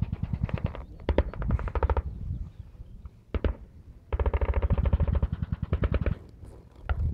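Machine gun firing rapid automatic bursts: several bursts in the first two seconds, a brief one a little past three seconds, a steady burst of about two seconds from about four seconds in, and another starting near the end.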